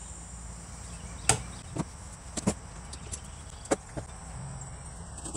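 A handful of short, sharp knocks and taps of a steel file and hands against the pine loom frame, the loudest about a second in, over a faint steady hum.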